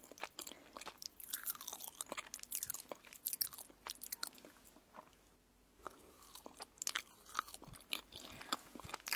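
Close-miked chewing and biting of crunchy food, with crisp crackles and mouth sounds. It pauses briefly about halfway through.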